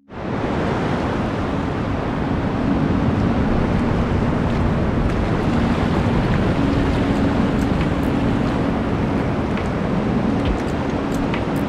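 Shallow ocean surf washing over sand and around rocks, a steady rush of water.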